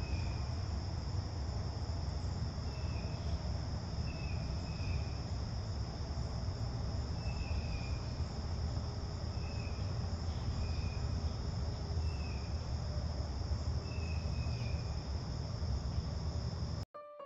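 Steady chorus of crickets, a continuous high-pitched drone, with short chirps recurring about once a second over a low rumble. Near the end it cuts off abruptly and piano music starts.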